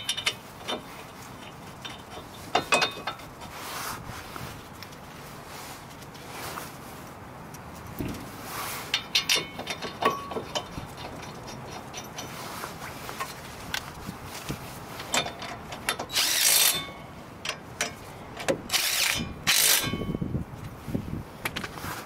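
Metal clinks and several short bursts of ratchet clicking as the front brake caliper bracket bolts are run in and tightened.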